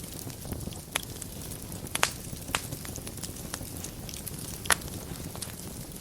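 Wood fire burning in a fireplace: a soft steady rumble with scattered crackles, and sharp pops about 2 seconds in and again near the end.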